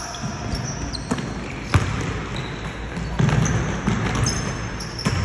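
A basketball bouncing and sneakers squeaking on a hardwood gym floor as players run, with a sharp knock a little under two seconds in.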